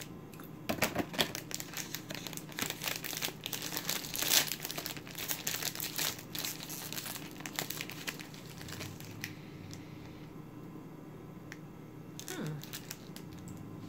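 Crinkly plastic snack wrapper being torn open and handled, with dense crackling for the first nine seconds or so, then only the odd rustle.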